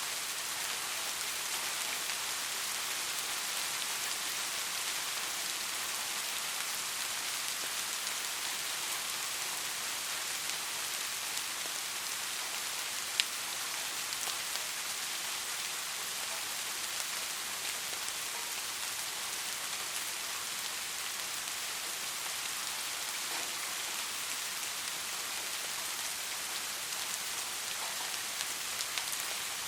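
Steady soft rain: an even hiss of many fine drops with scattered light ticks, and one sharper drop tick about halfway through.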